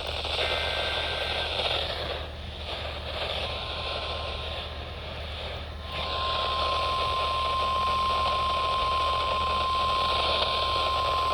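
Weather radio alert received over the air with a steady static hiss, a brief higher tone in the first second, then the steady 1050 Hz warning alarm tone, faint from about three and a half seconds in and loud from about six seconds in, signalling that a new warning is about to be read.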